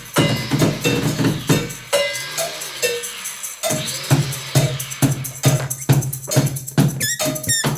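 Improvised noise-percussion music played live: a steady rhythm of sharp, tambourine-like strikes over a low pulsing note, thinning out briefly about two seconds in. Near the end, short falling squeaky glides join the beat.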